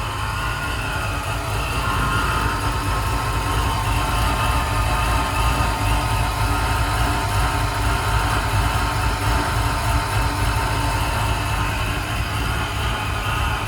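Supercharged LT1 small-block V8 running steadily and smoothly, with good fuel pressure now that the intermittent fuel pump problem behind its no-start has been found.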